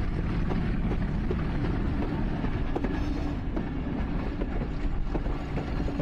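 Passenger train coach running along the track: a steady rumble of wheels on rail with a few sharp clicks, and wind buffeting the microphone at the open doorway.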